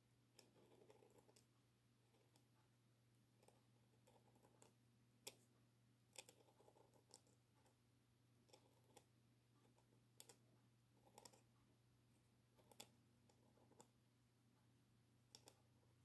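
Faint scratching of a metal dip-pen nib on paper as letters are drawn, with short sharp ticks as the nib touches down and lifts, coming irregularly every second or so. A faint steady hum lies underneath.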